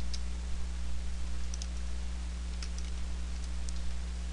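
About four faint, separate clicks from a computer's mouse and keys, over a steady low electrical hum.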